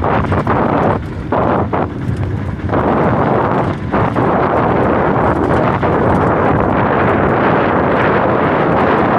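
Wind buffeting the microphone over the rumble of a vehicle travelling a rough, broken road, with brief lulls between about one and three seconds in.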